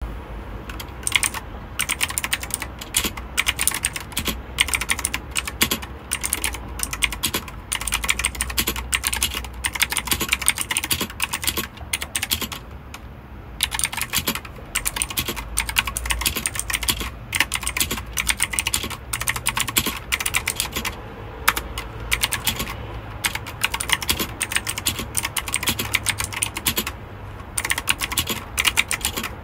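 Typing on a mechanical keyboard: rapid, continuous keystroke clicks, with brief pauses every few seconds.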